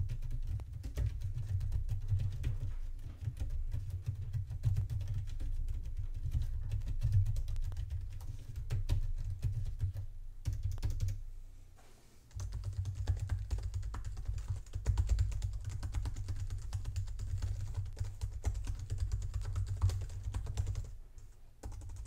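Quiet typing on a Logitech K780 wireless keyboard's round keys. After a brief pause about halfway, typing continues on a MacBook Pro's built-in keyboard, which sounds much the same.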